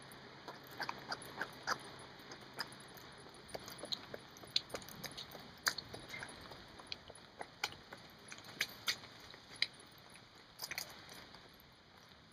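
Scattered faint, sharp clicks and ticks, irregular at one to three a second, over a soft steady hiss.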